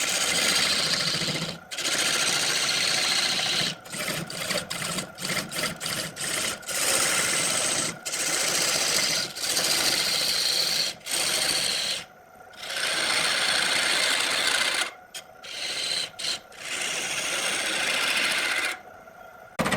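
A tool held against spinning wood on a wood lathe, a steady rasping hiss in long strokes broken by short pauses where the tool comes off the wood, over the faint hum of the lathe.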